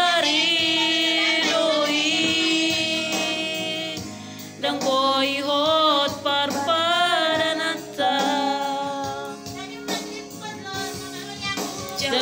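A voice singing a Batak-language song with strong vibrato over keyboard karaoke accompaniment, in sung phrases with short breaks about four and eight seconds in.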